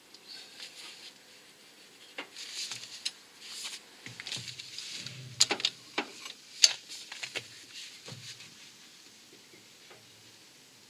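Gloved hands working a long bar on the crankshaft pulley bolt as it is angle-tightened: scattered light clicks and rustles, with two sharper clicks about five and a half and six and a half seconds in.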